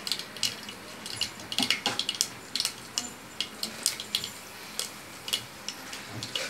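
Mustard and fenugreek seeds crackling in hot oil in a metal pot: irregular sharp pops, several a second, over a light sizzle.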